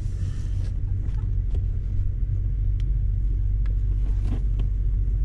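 Steady low rumble of a car running and moving, heard from inside the cabin, with a few faint clicks over it.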